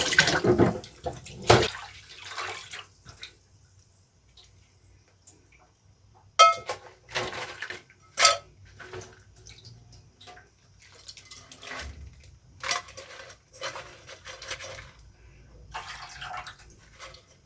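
Kitchen work sounds: running tap water that stops about a second and a half in, then scattered knocks and clinks of pots and dishes being handled, two of them ringing like struck metal or crockery.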